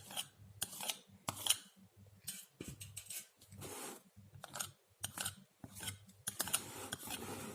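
Painting knife scraping acrylic paint onto board canvas in a series of short strokes, with a couple of longer drawn-out scrapes near the middle and near the end.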